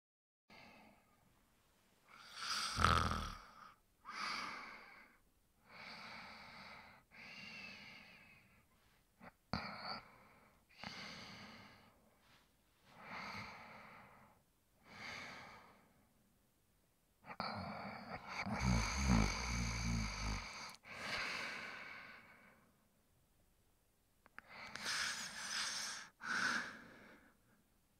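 A man snoring: a run of snoring breaths a second or two apart. About two-thirds of the way in comes a longer, louder snore with a low flutter.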